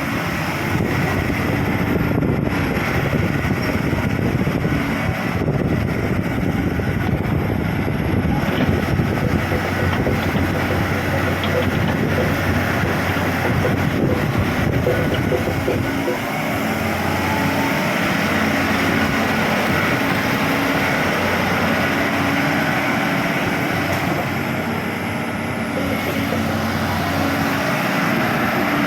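Komatsu PC200 hydraulic excavator's diesel engine running steadily, a continuous machine drone with a low hum.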